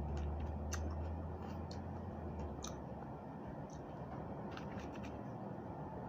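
Close-up chewing of fresh raw vegetables: scattered small wet crunches and mouth clicks. A low hum fades out about halfway through.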